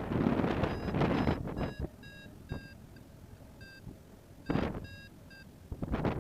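Paragliding variometer beeping: runs of short, same-pitched beeps, the instrument's lift signal, heard through rushes of wind on the microphone that are loudest near the start and again about four and a half seconds in.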